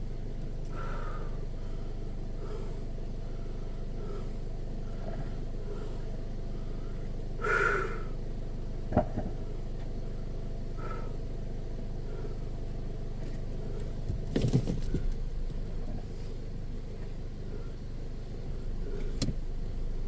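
Car engine idling steadily, with a sharp knock about nine seconds in and a short run of knocks and thumps around fourteen seconds.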